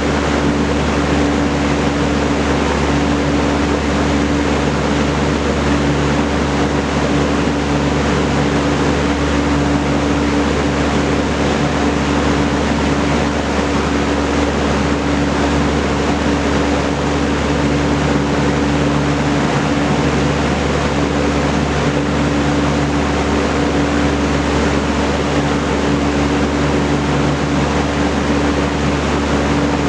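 Vintage Kenmore Roll-A-Matic 20-inch electrically reversible box fan with a four-blade propeller running: a steady rush of moving air over a steady motor hum.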